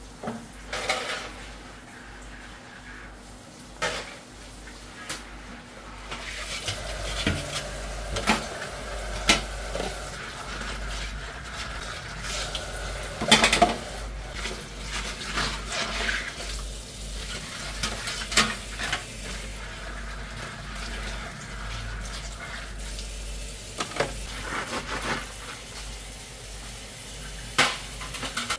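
A metal oven baking tray being washed at a kitchen sink: sponge scrubbing and scattered sharp knocks and clatters of the tray against the sink and rack, over the hiss of tap water running as it is rinsed.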